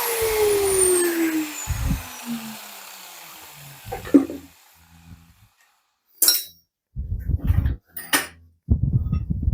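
A power tool cutting metal is switched off and winds down, its motor note falling over about two seconds. Then come a sharp clank and several dull knocks and thuds as the cut metal pieces are handled.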